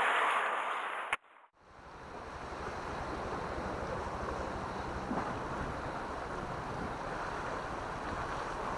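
Water sloshing and splashing in a cooler box for about a second, cut off abruptly, then steady surf washing against rocks with wind on the microphone.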